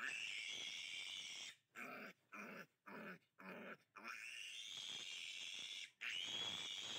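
Three-day-old piglet squealing in distress while held and castrated, long high squeals at the start and end with a run of short cries in the middle.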